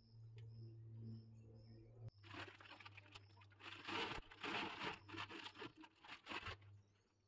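Plastic bag crinkling and rustling in irregular bursts as vegetables are shaken out of it into a cast-iron pot, starting about two seconds in and stopping shortly before the end.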